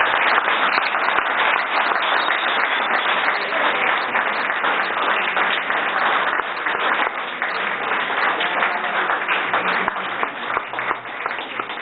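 Audience applauding: many hands clapping at once, starting loud and thinning out toward the end.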